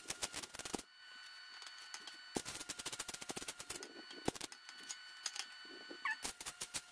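MIG welder laying short welds on the steel of a cut propane tank, a fast, crackling sizzle of the arc in three bursts. The first burst ends just under a second in, the second runs for about two seconds from the middle, and the third starts near the end. A faint steady hum fills the gaps between welds.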